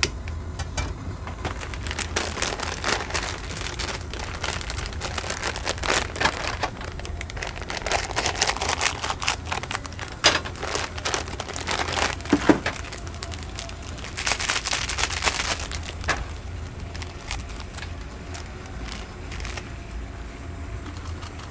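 Irregular crinkling, rustling and clicks of food preparation, with a few short bursts of hiss, over a steady low hum.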